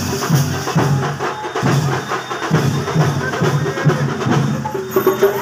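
Street drum troupe beating large drums with sticks, a loud, steady low beat about two strokes a second with sharper stick hits over it.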